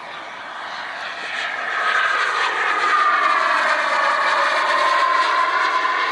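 RC model jet turbine whining in flight as the plane passes, growing louder over the first couple of seconds, with its pitch sliding down and then levelling off.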